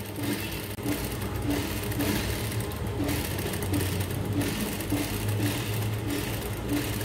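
Industrial single-needle lockstitch sewing machine running steadily, stitching through fabric, with its motor humming.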